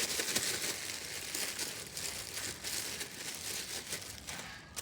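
Packaging of a new oil filter crinkling and rustling as it is unwrapped by hand, stopping near the end.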